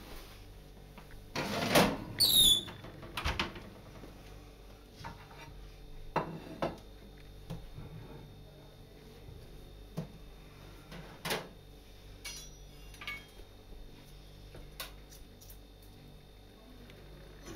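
Metal roasting tray clattering and scraping on a kitchen counter, loudest about two seconds in, with a short high metal screech falling in pitch. After it come scattered light knocks and clicks as the roast in the tray is handled.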